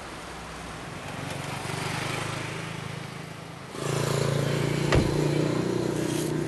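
Engine of an old Isuzu pickup truck running steadily, getting louder and fuller about four seconds in, with one sharp click about five seconds in.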